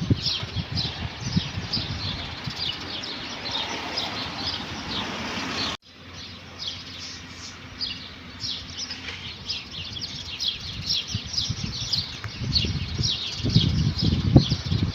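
Many small birds chirping together: a dense, continuous chatter of short, high, downward-sliding chirps. A low rumbling runs underneath at the start and again near the end, and the sound cuts out sharply for an instant about six seconds in.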